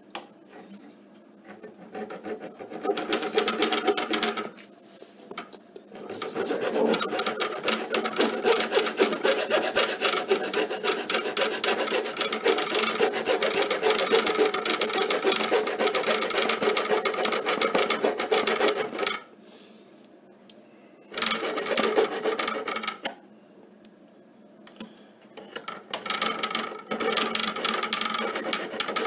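Tactix miniature hacksaw cutting through an aluminium threshold with steady back-and-forth strokes. The sawing comes in long runs that stop for a second or two about four seconds in, and twice more in the second half.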